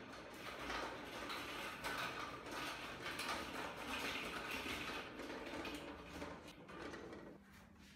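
Small stainless-steel trolley on caster wheels pushed across a tiled floor, its wheels and the machine it carries rattling and clattering continuously; the noise drops off about seven seconds in as the trolley comes to rest.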